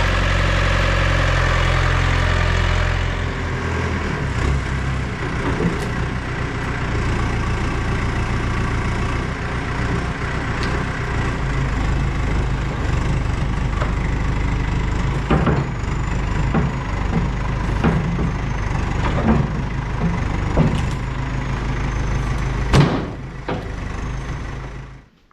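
An engine running steadily, its tone changing about three seconds in, with scattered knocks and clanks over it; the loudest knock comes near the end, and the engine sound cuts off suddenly.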